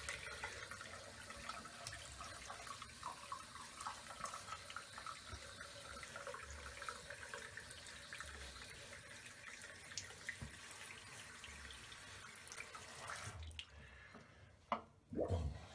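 Bathroom sink tap running steadily, then shut off near the end, with a short knock just after.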